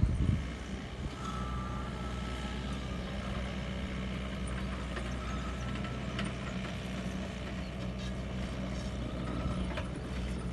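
Compact track loader's diesel engine running steadily under load as it pushes a leveling grader attachment across loose soil, a low even hum with a faint high whine that comes and goes.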